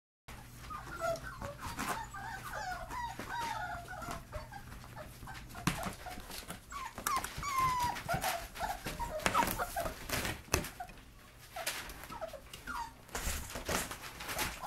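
Five-week-old puppies whining and whimpering: many short, high-pitched whines overlapping, with scattered knocks and rustles from handling.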